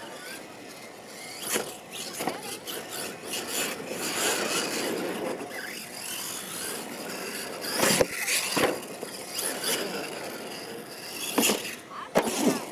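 RC monster truck's motor whining as it drives and jumps on a dirt track, with several sharp knocks from the truck hitting ramps and landing, the last ones close together near the end as it tumbles.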